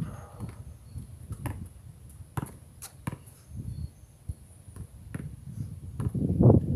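Basketball dribbled on an outdoor hard court: irregular sharp bounces, about one every second or so, over a low rumble that grows louder near the end. Faint short bird chirps sound now and then.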